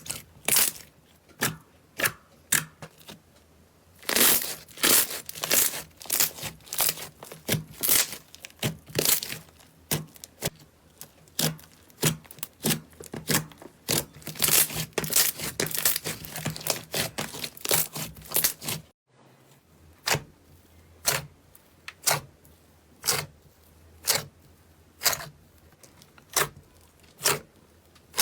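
Slime being pressed and squeezed, making a long run of sharp crackling pops, a few a second, with a brief break about two-thirds of the way through.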